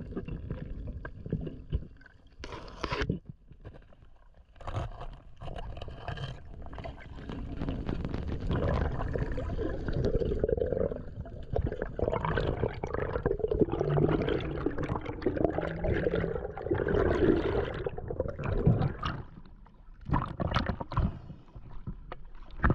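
Water sloshing and gurgling around a spearfisher's camera in the sea, louder through the middle, with a few brief sharp noises near the start and near the end.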